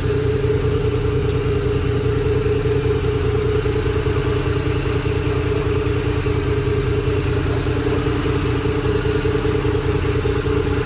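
Suzuki Scrum mini truck's rear-mounted engine idling steadily after a tune-up. Its valve clearances have been reset: they had been set too tight, letting compression leak, which caused hard starting and no steady idle.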